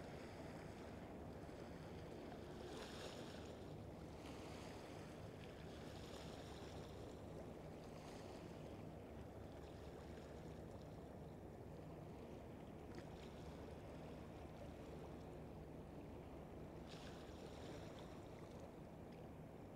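Faint, steady low rumble of a calm sea at the shore, with a few soft hissing washes of small waves around three, six and seventeen seconds in.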